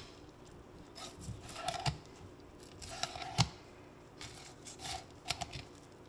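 Fillet knife cutting a peacock bass fillet away over the fish's rib cage, in three short bouts of strokes.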